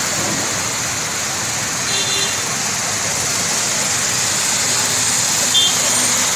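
Steady hiss of heavy rain on a flooded street, with cars and motorbikes running through the standing water and splashing it aside. Two short high beeps cut through, about two seconds in and again near the end.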